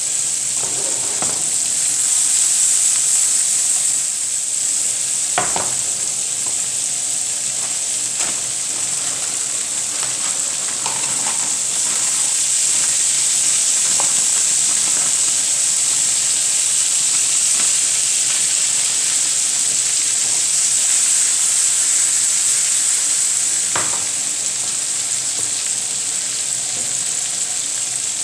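Omelette ingredients frying in a pan: a steady, loud sizzle, with a few sharp clicks of a utensil against the pan, the clearest about five seconds in and again near the end.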